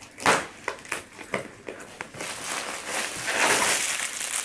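Unpacking a cardboard shipping box by hand: a run of short knocks and rustles from the box flaps and contents, then, from about two seconds in, steady crinkling of the clear plastic bag around a garment being lifted out.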